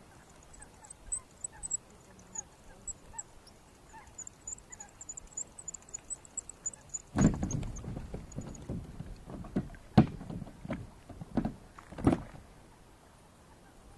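Knocks and thumps from gear being handled in a small boat. They start about halfway through, and sharp, loud knocks come about three and five seconds later. Faint high chirps are heard before them.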